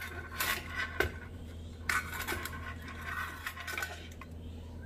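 Metal clicks and rattling as the folding pot-support arms and legs of a CAMP 1 remote-canister gas stove are swung open and the stove is set down on a wooden slatted table. There are two sharp knocks, about a second in and just before two seconds.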